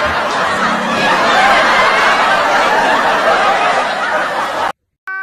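Dubbed-in audience laughter, a dense mass of many people laughing, which cuts off abruptly near the end; just after, a steady electronic tone begins.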